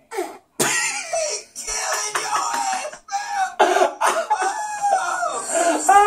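A man laughing hard in repeated loud bursts.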